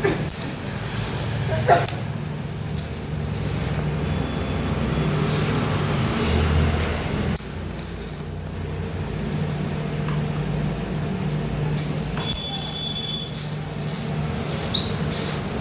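TIG welding: the welder and arc give a steady electrical buzz with hiss, which drops sharply to a lower level about seven seconds in, with a few short clicks.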